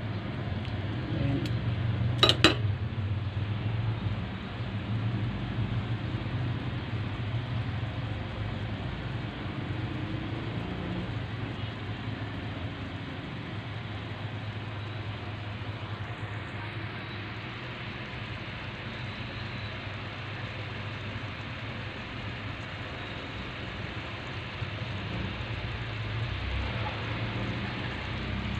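Beef pieces frying in a pan, a steady sizzling hiss, with a low hum underneath. About two seconds in there is one sharp click of metal tongs against the pan.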